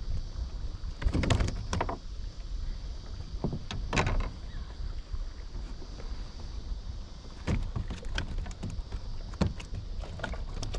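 Kayak on the water: a steady low rumble with irregular clusters of short knocks and clatters from the hull and gear, one about a second in, another near four seconds, and several more in the last three seconds.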